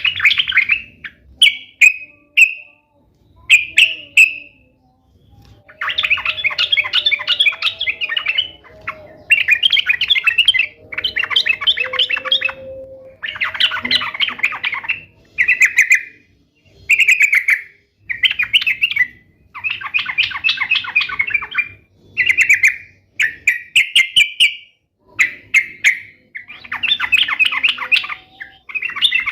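Yellow-vented bulbul (trucuk) singing: a string of bubbly, chattering phrases, each lasting from half a second to about three seconds, with short pauses between them.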